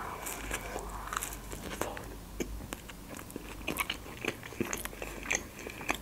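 A person biting into a toasted hot open sandwich, then chewing it, with many small irregular crunches of the crisp bread.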